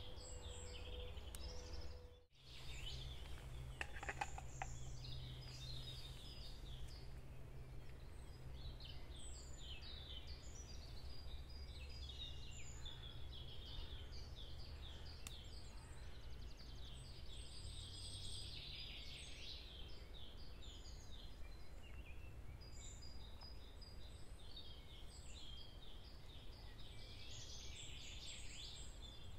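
Several songbirds chirping and trilling in overlapping short phrases, over a steady low rumble. There is a brief dropout about two seconds in.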